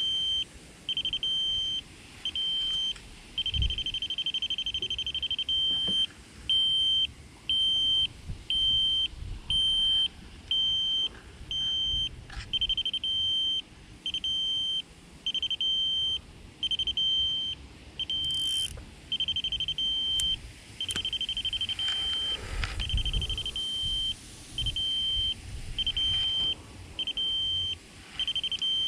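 An electronic alarm beeping steadily: a single high beep repeating about every two-thirds of a second, with one longer held beep about three to five seconds in. Low rumble of wind and handling noise lies underneath.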